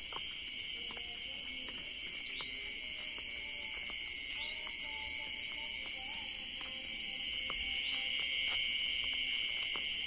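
Night insects' chorus: a continuous shrill, high-pitched drone that swells slightly in the second half, with faint scattered clicks.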